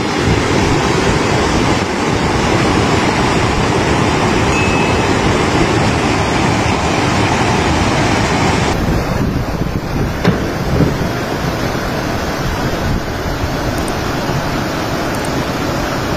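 Flash-flood torrent of muddy water rushing down a wadi, a steady loud rushing noise. About nine seconds in, the hiss drops away and the rush turns duller.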